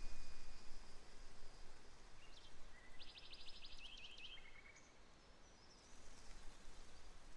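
Outdoor ambience: a steady low rumble and hiss, with a songbird singing a short, rapid trill about three seconds in that steps down in pitch twice before stopping, and a few faint chirps around it.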